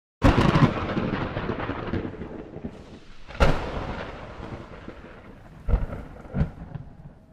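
Thunder: a loud crack at the start that rolls off into a long rumble, a second sharp crack about three and a half seconds in, and two shorter cracks near the end.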